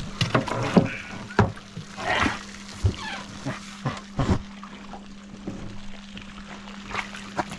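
Water splashing and sloshing around a canoe, a run of splashes over the first four seconds or so, then quieter.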